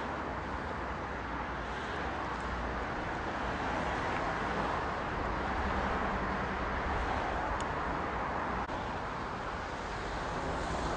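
Steady outdoor noise with a constant low rumble, like engines running, and no clear voices.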